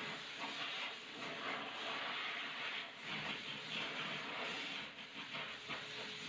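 Hose-type pet blow dryer running, a steady rushing hiss of air from its nozzle that swells and dips as the nozzle is moved over a wet dog's coat.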